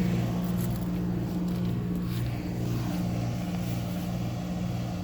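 Running outdoor heat pump or air conditioner condensing unit: the compressor's steady low hum with a slight throb a few times a second, under the rush of the condenser fan.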